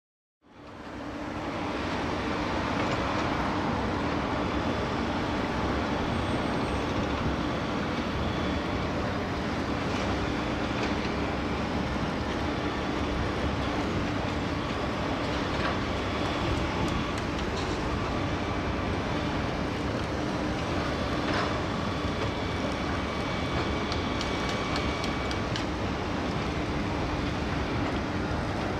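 Steady ambience of a large construction site and city: a continuous rumble of heavy machinery and traffic with a low hum and a few faint knocks. It fades in over the first second.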